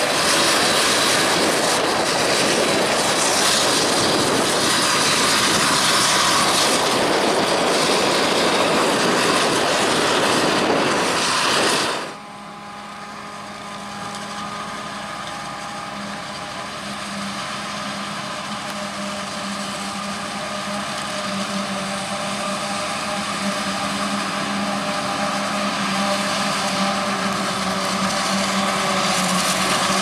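Claas Jaguar 870 forage harvester chopping maize and blowing it into a trailer drawn by a Massey Ferguson tractor: a loud, steady machine noise. About twelve seconds in it drops sharply to a steady hum with a whine, which grows gradually louder as the harvester and tractor come closer.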